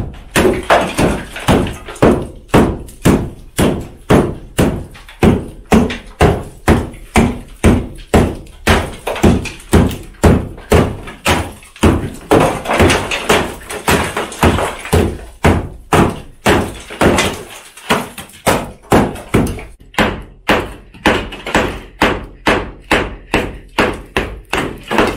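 Hammer striking a brick wall over and over, knocking out bricks and mortar to cut an opening: steady sharp blows about two a second.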